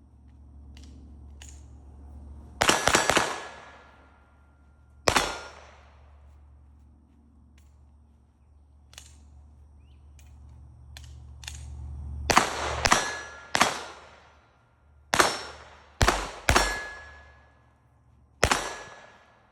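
.22 LR gunshots: a quick cluster of shots and a single shot, a pause of about seven seconds with only faint small clicks, typical of a magazine reload, then about seven more shots at uneven spacing. Several shots are followed by a brief ringing tone.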